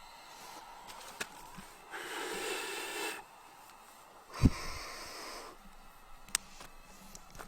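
Small campfire of wet wood with a few sharp pops, and two breathy rushes of air about a second long each; the second rush opens with a low thump.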